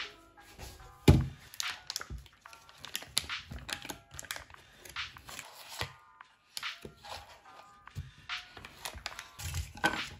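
Kitchen handling sounds over background music: the foil wrapper of a butter block crinkling and tearing, with scattered knocks and a thud about a second in.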